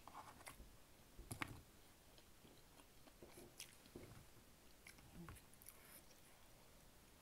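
Faint close-up chewing of thin, crispy-crust pepperoni pizza, with scattered small crunches and mouth clicks; the sharpest crunch comes about a second and a half in.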